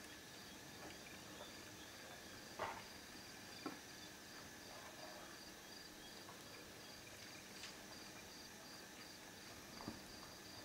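Faint night insects calling: a steady, high, evenly pulsing chirp, with a few soft knocks, the loudest about two and a half seconds in.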